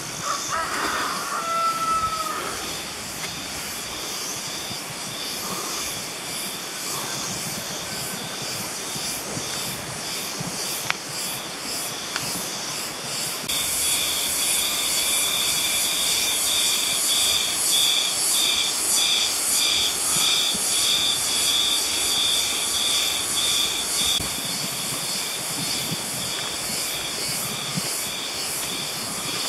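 Insects buzzing in a pulsing, high-pitched chorus over a steady hiss, much louder for about ten seconds from the middle of the stretch.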